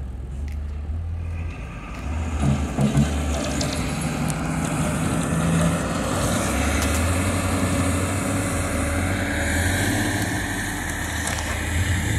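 Diesel engines of heavy machinery, a wheel loader and a small farm tractor, running with a steady low hum that grows louder about halfway through.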